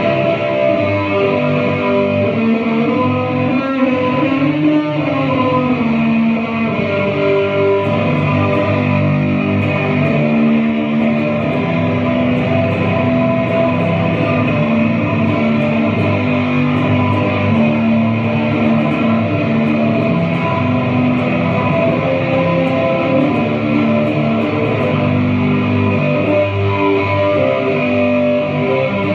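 Loud, steady guitar music with long sustained notes, and a pitch slide that rises and then falls about four to six seconds in.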